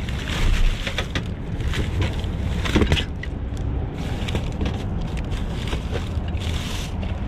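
Rummaging through trash in a dumpster: irregular clattering, knocking and rustling of loose items being moved, loudest about half a second in and near three seconds in, over a steady low rumble.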